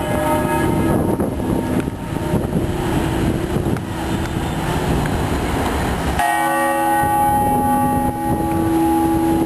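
A large bell tolled slowly in a memorial toll: one stroke at the start and another about six seconds later, each ringing on and fading. Steady street noise runs underneath.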